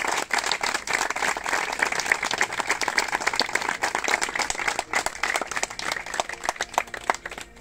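A small crowd of people clapping their hands in applause, a dense patter of claps that thins out near the end.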